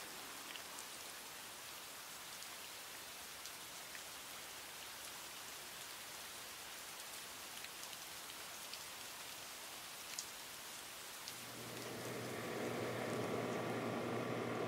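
Steady soft hiss with scattered faint clicks, like rain or surface crackle. About eleven seconds in, a low steady hum with higher overtones comes in and grows louder.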